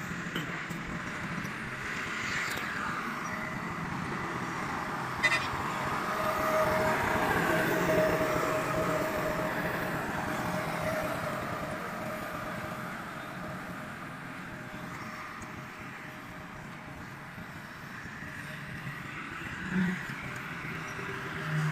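Massey Ferguson 385 tractor's diesel engine running steadily, growing louder over the first third and then fading. A short sharp click about five seconds in.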